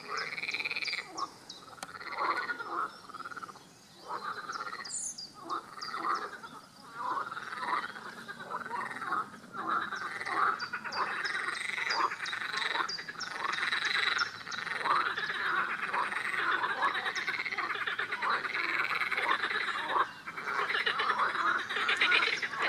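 A chorus of European water frogs croaking, many calls overlapping almost without pause, with brief lulls at about four seconds and near twenty seconds.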